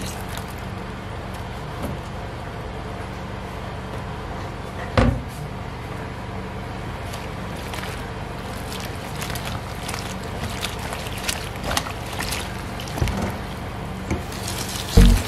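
Chopped leafy vegetables being washed by hand in a plastic bowl of water under a running tap: a steady wash of water with swishing and splashing, and a few short knocks, the loudest about five seconds in.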